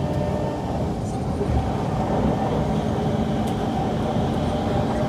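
Kawasaki C151 MRT train running on the line, heard from inside the car: a steady low rumble with several steady humming tones from the train's running gear and traction equipment.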